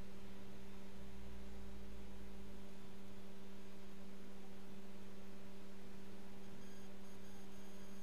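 Steady electrical hum: a constant low tone with a weaker tone an octave above it, unchanging throughout.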